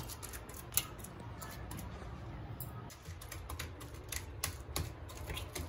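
Irregular light clicking and tapping of kitchen utensils against dishware, over a steady low hum.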